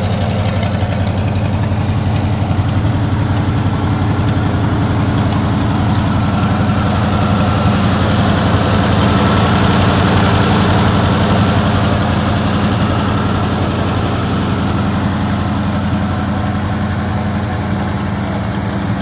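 Ford N-series tractor's flathead V8 engine idling steadily, a little louder in the middle.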